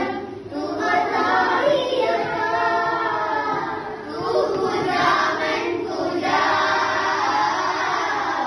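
A class of schoolchildren singing a song together, with short breaks between phrases.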